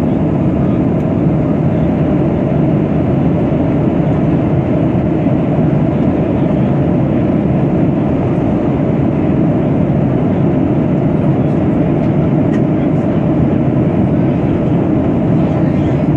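Jet airliner cabin noise in cruise: a steady, deep rushing roar of airflow and engines, heard from inside the cabin.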